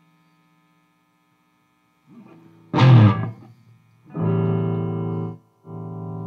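Distorted electric guitar from a Gibson Les Paul played through a Mesa Boogie Dual Rectifier tube amp, set to diode rectification at full power, into a Marshall 1960A 4x12 cabinet. It comes in about two seconds in with a loud chord hit, then a held chord that is cut off short, then another held chord.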